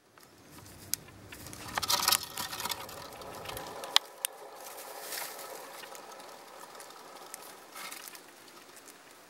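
Gerbil running in a wooden running wheel: the wheel rumbles and rattles under its feet, with scattered sharp clicks and knocks. The low rumble drops away at about four seconds, leaving quieter running noise.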